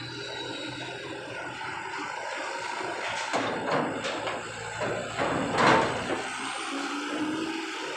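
Mitsubishi light diesel trucks driving off a ferry down its steel loading ramp, engines running steadily. Several short noisy bursts come between about three and six seconds in, the loudest near the end of that stretch.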